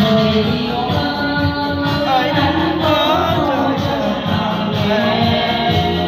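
A woman singing into a microphone over a recorded backing track with a steady beat, her voice wavering in pitch on held notes.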